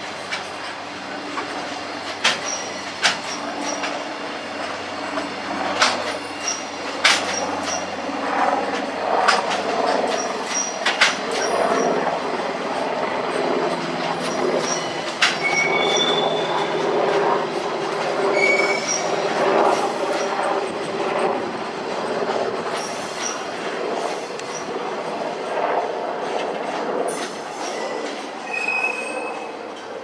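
Container flatcars of a long freight train rolling past. Their steel wheels clatter over the rail joints, with sharp clicks now and then and a few brief, high wheel squeals. The sound eases a little near the end as the last wagons draw away.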